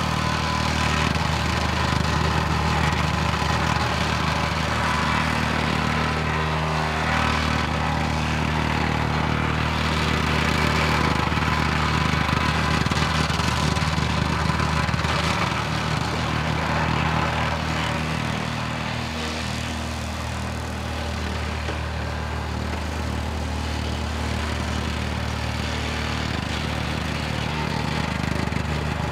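Komatsu PC240LC excavator's diesel engine running steadily as the machine works, a constant low engine hum with a noisy mechanical wash over it. The level eases off slightly for a few seconds about two-thirds of the way through.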